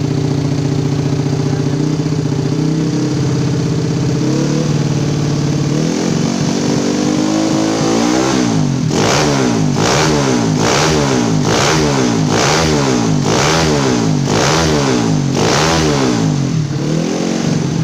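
Bored-up Honda Astrea Grand single-cylinder four-stroke engine (about 130cc) idling steadily, then revved in a series of about ten quick throttle blips, roughly one a second, each rising and falling in pitch. It is being run to push oil through a newly fitted oil cooler.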